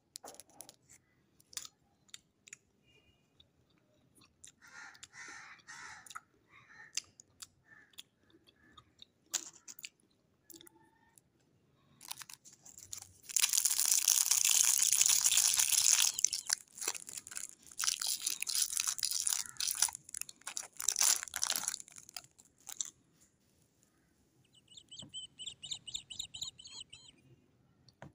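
Clear cellophane lollipop wrapper crinkling and crackling as fingers peel it off, in scattered crackles at first and then a dense, loud stretch of crinkling in the middle. A brief high trilling sound comes near the end.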